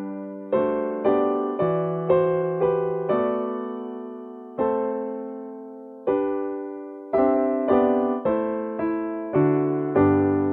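Piano playing the closing phrase of a hymn tune in block chords, struck about twice a second with a few held longer. The last, final chord is struck near the end and left ringing.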